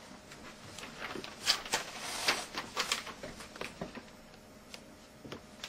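Sheets of printed paper rustling and crackling as they are handled and held up: a string of short, crisp crackles that dies down about four seconds in.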